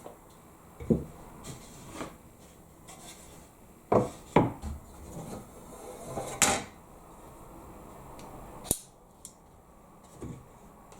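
Thin wooden boards being handled and set down, giving irregular hollow knocks and clunks, the loudest about four seconds in, with a sharp click later on.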